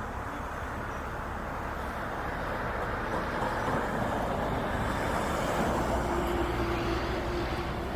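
Strong wind noise over a mobile crane's engine running steadily; a steady hum comes in about five and a half seconds in.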